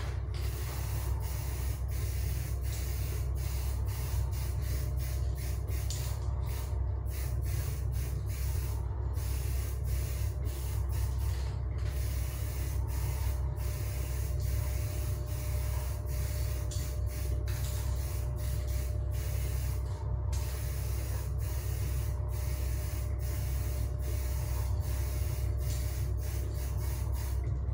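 Aerosol spray-paint can hissing as a covering coat goes on, the hiss breaking off briefly again and again between passes, over the steady low hum of a running fume extraction fan.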